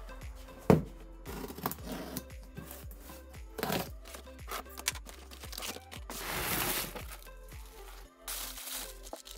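Utility knife slitting the packing tape on a cardboard box, then the cardboard being torn and opened with paper crinkling, in a few separate bouts, the longest about a second. Background music plays throughout.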